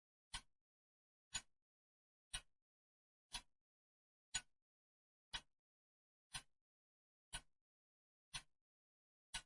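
Clock ticking evenly, one short sharp tick each second.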